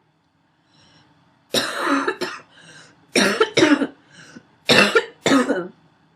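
A woman's wheezy, barking cough: about six harsh coughs coming in three pairs, each pair led by a short wheezing in-breath.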